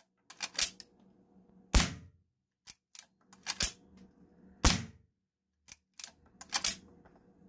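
Henry lever-action .22 LR rifle fired unsuppressed: two sharp shots about three seconds apart, with the lever being worked between them in quick pairs of clacks.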